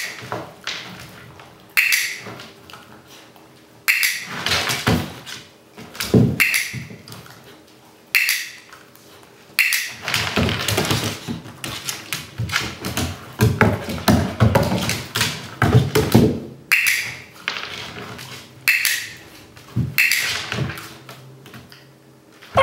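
Dog-training clicker clicking sharply about seven times at uneven intervals, marking a Finnish Lapphund puppy lying down on cue. Between the clicks, the dog's paws scuffle and knock on the wooden floor, most busily in the middle stretch.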